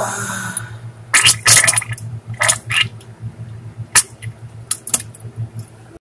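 Wet diarrhea farts: a hissing blast at the start, then a string of short spluttering bursts.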